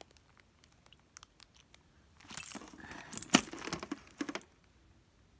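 Hands rummaging through a pile of keychains and plastic-wrapped items: plastic crinkling with small hard objects clicking against each other. It is loudest between about two and four and a half seconds in, with one sharp click near the middle.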